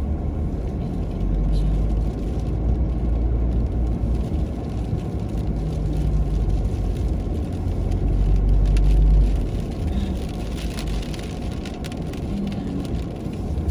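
Car driving through snow: a steady low rumble of engine and tyres that swells around eight to nine seconds in, then eases.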